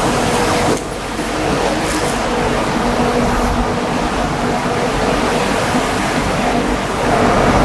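Steady rushing background noise with a faint low hum under it, dipping briefly about a second in and growing a little louder near the end.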